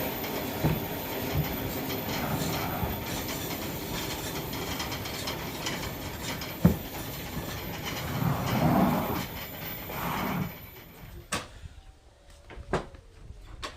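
Sawmill machinery running with a steady clattering rumble and occasional knocks, which stops about ten seconds in; a few sharp knocks follow.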